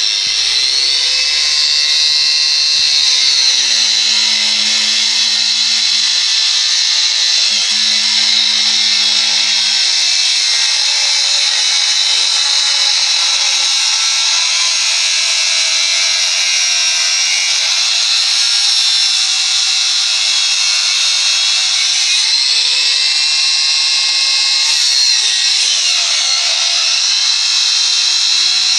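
Wonder Cut electric angle grinder's cut-off disc grinding through a thick iron pipe: a loud, steady, high-pitched grinding of disc on metal. The pitch of the tool shifts twice along the way.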